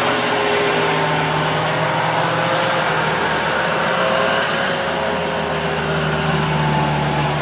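Bobcat skid steer's engine running steadily while the machine plows the driveway, its pitch wavering slightly.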